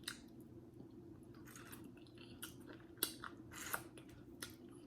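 Close-miked chewing of a mouthful of seafood gumbo: faint wet mouth clicks and smacks, a handful of them spread over a few seconds, the loudest about three seconds in.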